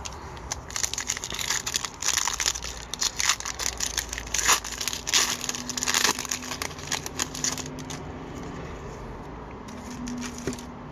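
Foil wrapper of a 2017-18 Upper Deck Series One hockey card pack being torn open and crinkled by hand: a dense run of crackling from about half a second in until about seven and a half seconds, then much quieter.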